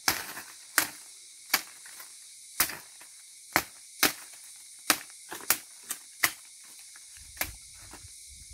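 Machete chopping soft green wattle branchlets into short pieces: about a dozen sharp chops, roughly one a second, a few coming closer together.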